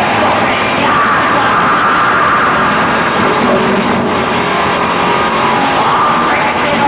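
Metal band playing live, a loud, dense, unbroken wall of band sound.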